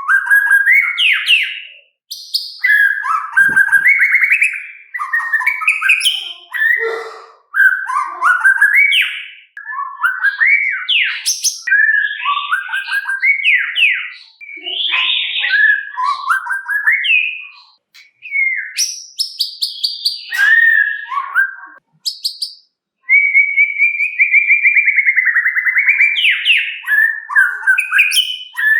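White-rumped shama (murai batu) singing a long, varied song of whistled phrases and fast chattering notes, broken by brief pauses, with a long rapid trill about three-quarters of the way through.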